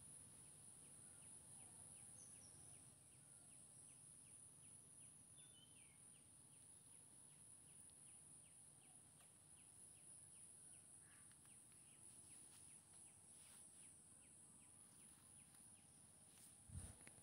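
Near silence: faint room tone with a steady high hiss, a faint regular ticking about three times a second, a few faint chirps, and a low knock near the end.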